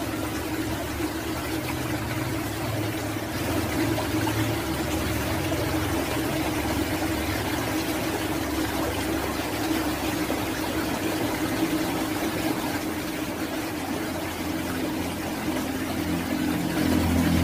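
Steady rush of running water, with a low steady hum beneath it.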